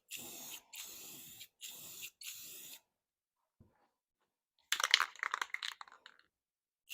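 Black spray paint hissing out in four or five short bursts of about half a second each, a light coat going on the top band of a Delta shaper cabinet. About two seconds later comes a brief clatter of sharp clicks, the loudest sound.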